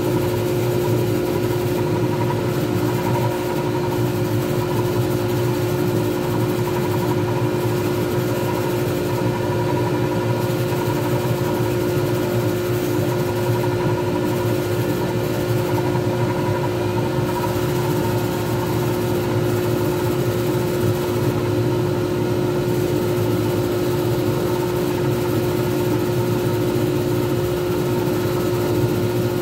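Small wood lathe running at a steady speed: a constant motor hum with one unwavering tone.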